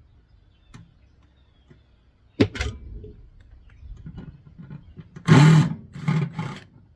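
Knocks and a rough clatter from microwave parts being handled during teardown: a sharp knock about two and a half seconds in, then a louder scraping clatter near the end.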